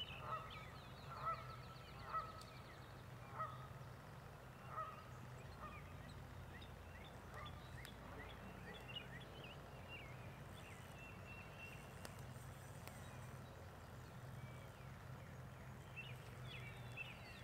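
Faint goose honking, about five short honks in the first few seconds, with small birds chirping and singing throughout and a low steady hum underneath.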